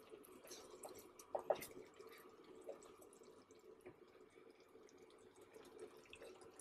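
Strawberries and sugar simmering faintly in a nonstick pan as a spatula stirs and mashes the fruit. There are a few soft pops and taps, the loudest about a second and a half in.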